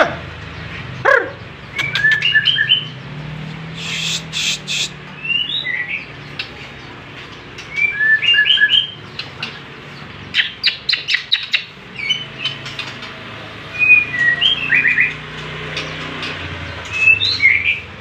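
White-rumped shama (murai batu) singing in its cage: a run of short whistled phrases, some sliding up or down, broken by quick bursts of rapid clicks, a new phrase every second or two.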